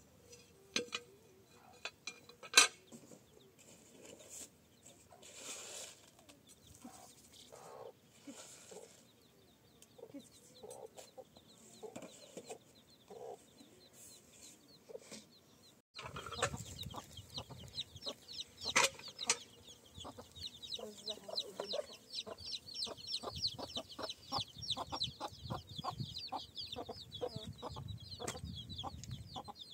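Chickens clucking, with a sharp knock a couple of seconds in. About halfway the sound gets suddenly louder, and a dense, rapid high chirping runs through the second half.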